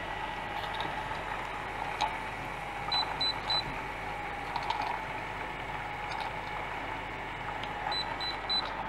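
Sous vide immersion circulator running steadily, stirring the water bath with a continuous hum. A short high electronic beep sounds in quick threes, about three seconds in and again near the end.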